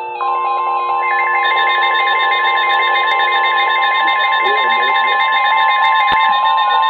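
NOAA Weather Radio 1050 Hz warning alarm tone, a single steady tone that comes on just after the start, with several weather radio receivers beeping their own rapid alert patterns at different pitches over it. It is the alarm for a newly issued severe thunderstorm warning.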